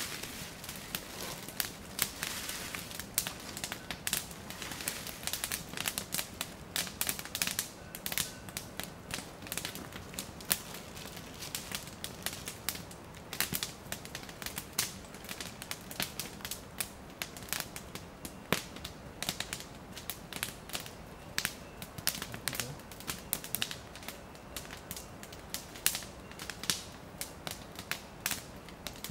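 Wood campfire crackling, with many irregular sharp pops and snaps over a low hiss.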